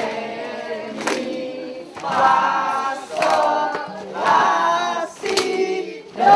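A group of voices singing together in short phrases, with brief pauses between them.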